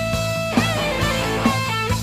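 Background music: electric guitar over a steady beat.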